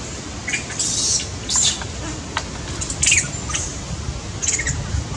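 Macaques giving a series of short, high-pitched squeaks, about half a dozen a second or so apart.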